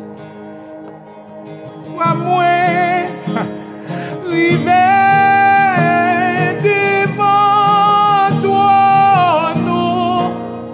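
A man singing long held notes with vibrato over a strummed acoustic guitar. The guitar is heard alone for about the first two seconds, fading, before the voice comes in.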